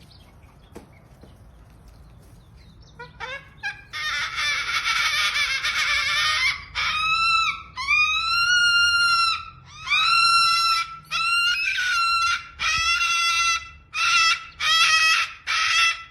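Cockatoo screaming in a tantrum. After a few quiet seconds comes a harsh, noisy screech, then a string of long rising-and-falling calls that break into shorter repeated calls near the end.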